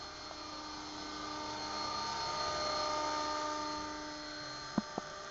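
Electric radio-controlled model helicopter with an Agusta 109 scale body on a Mini Titan in flight: a steady high whine from its motor and rotor, swelling as it passes closer about halfway through and then easing off. Two sharp clicks near the end.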